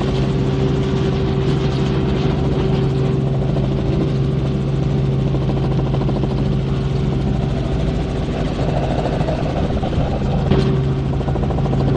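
Helicopter running steadily: a constant engine and rotor drone with a steady hum and a fine, even pulsing. There is one short click about ten seconds in.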